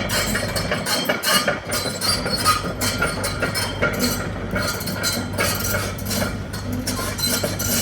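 Hitachi ZX130 tracked excavator's diesel engine running steadily, with repeated metallic clanks and knocks over it.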